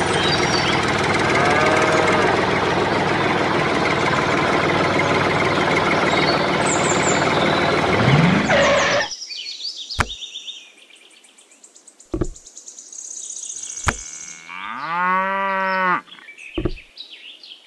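A dense engine-like noise runs for about nine seconds and then cuts off. A few sharp knocks follow, and about fifteen seconds in a single cow moo rises, holds for over a second and falls away.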